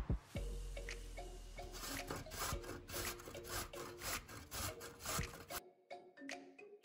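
A raw carrot being grated on a stainless steel box grater standing on a wooden cutting board: repeated rasping strokes as the carrot scrapes down the blades.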